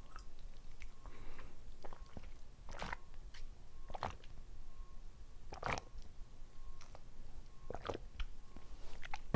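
Gulping and swallowing water drunk straight from a plastic water bottle's spout, a series of separate wet mouth and throat sounds about a second apart, picked up close by a clip-on microphone.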